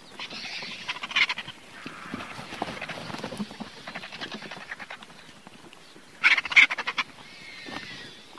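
Vultures calling with harsh, rasping croaks and hisses. Two louder rattling bursts stand out, one about a second in and one just after six seconds.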